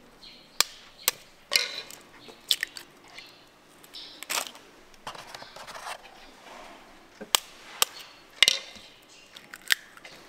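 Food preparation at a gimbap counter: irregular sharp clicks and knocks of utensils and containers being handled, with a few short rustles.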